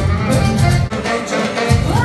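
Live saxophone music with a full accompaniment, in a performance by a sax-and-vocal duo. The bass drops out for about half a second past the middle, then a held note slides up and sustains near the end.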